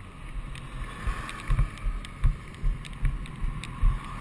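Wind buffeting a helmet camera's microphone on a moving motorcycle: low thumps come a few times a second over a steady rushing noise.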